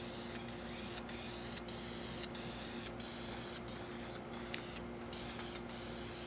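Faint steady background hum with a constant hiss, with one small click about four and a half seconds in.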